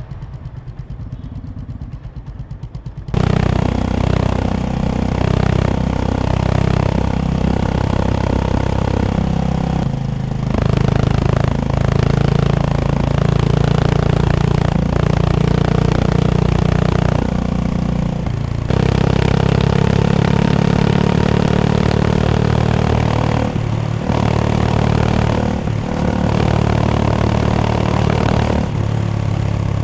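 Honda CB350 H'ness single-cylinder engine, heard quietly with an even pulsing for about three seconds, then suddenly much louder as the motorcycle runs under way. The engine note holds steady and shifts a few times along the way.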